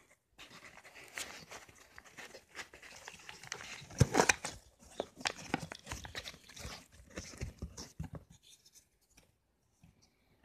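Handling noise from a cardboard box and its foam insert: irregular scrapes, rustles and small knocks as a small circuit-board module is pulled out of the packaging, loudest about four seconds in and dying away near the end.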